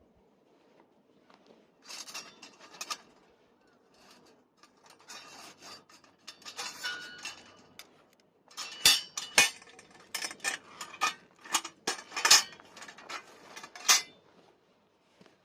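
Cookware and utensils being handled: rubbing and scraping, then a run of sharp clicks and clinks in the second half.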